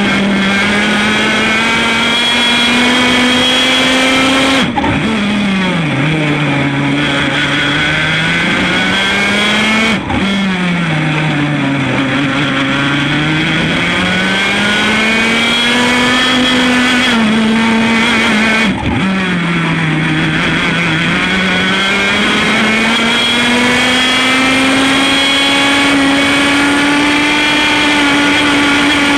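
A 100 cc Formula A kart's two-stroke engine running hard at high revs. At about 5, 10 and 19 s in it briefly cuts off the throttle, the pitch falls as the kart slows for a corner, then it rises again as the engine pulls back up to full revs.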